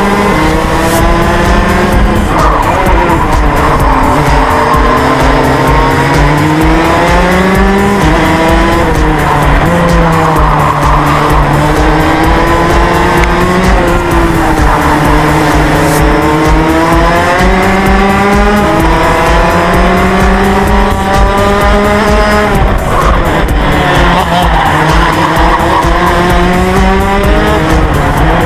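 Racing go-kart engine heard on board at speed. Its pitch climbs on the straights and drops into the corners, over and over.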